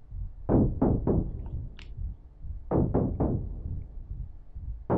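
Two sets of three heavy knocks, about a third of a second apart, the second set about two seconds after the first.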